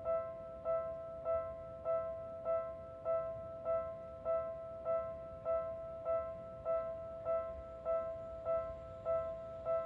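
Railway level-crossing warning bell ringing in an even, unbroken rhythm, a little under two identical chimes a second, warning of an approaching train.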